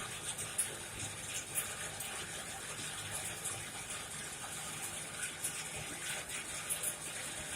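Coal forge fire burning hot while a knife blade heats in it for hardening: a steady rushing noise with scattered sharp crackles and pops from the burning coal.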